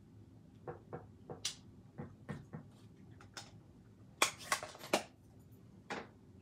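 Clear acrylic stamping block with a mounted stamp being pressed onto cardstock, lifted and set down on a paper-crafting mat: a string of light taps and clicks, with a cluster of sharper knocks a little after four seconds in.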